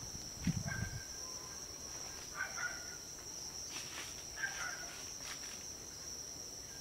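Crickets chirring in a steady high drone. Over it come a few faint, short, high notes, which the listeners take for ringing bells, and one low thump about half a second in.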